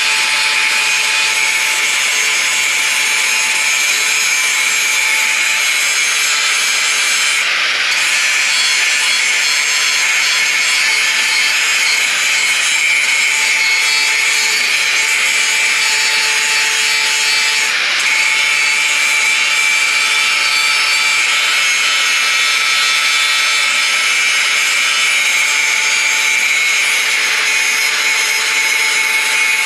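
Power tool cutting through the car body's sheet steel, running steadily with a high whine over a harsh grinding noise. It eases off briefly twice.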